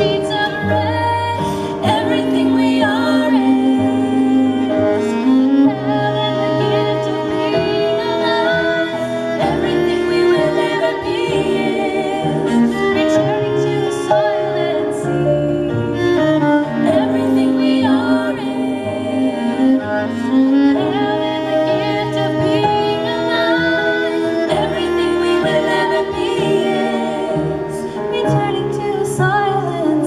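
A live song played on violin and cello, with a woman singing over the bowed strings; the notes are held long and change slowly.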